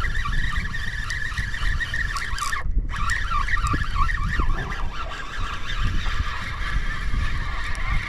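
Wind buffeting the microphone, a steady low rumble throughout, with a faint high wavering sound above it in the first half.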